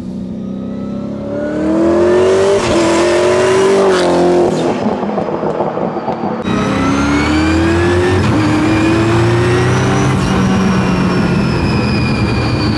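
Fully built twin-turbo, supercharged Ford Coyote V8 accelerating hard through the gears of its paddle-shifted sequential gearbox. The engine note climbs in pitch on each pull and drops sharply at each quick upshift, several times, then settles into a steadier, slowly falling note near the end.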